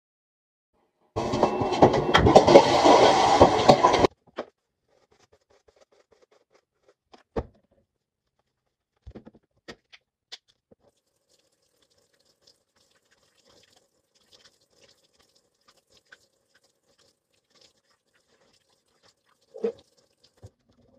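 Water rushing loudly for about three seconds, starting and stopping abruptly, then a few faint knocks and clicks.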